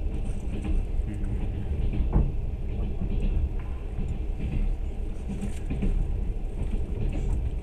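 Passenger train running, heard from inside the carriage: a steady low rumble of wheels on the rails, with a single knock about two seconds in.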